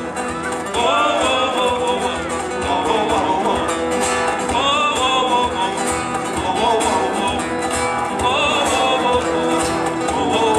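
Live band music: acoustic guitars played with a man singing into a microphone, over a bass guitar.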